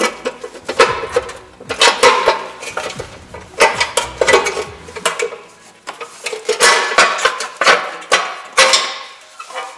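Metal wrenches and engine parts clinking and clattering in a string of sharp knocks and rattles as the valve cover comes off a Lada 2107 engine to replace its leaking gasket.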